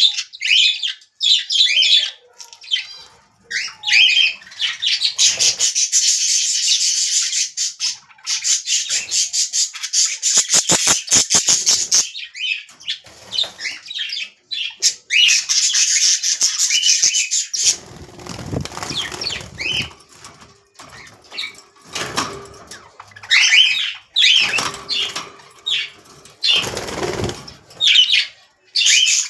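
A group of pet budgies and other small parrots chattering and chirping without pause. Several short bursts of wing flapping come through, including a rapid flutter about ten seconds in.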